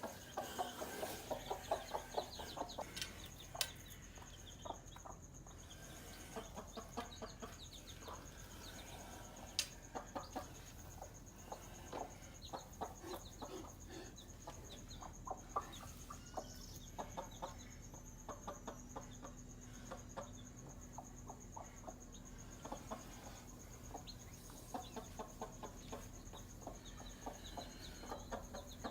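Domestic hen clucking in quick runs of short calls, with faint high chick peeps here and there, over a steady faint high-pitched whine.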